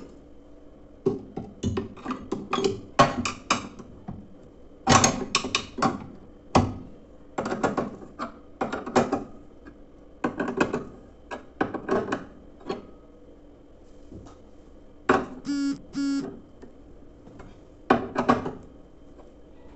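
Clusters of sharp metallic clicks and knocks from hand tools and parts as the washing machine's drive belt is tensioned and the motor mount tightened, with a short pitched squeak, twice, about fifteen seconds in.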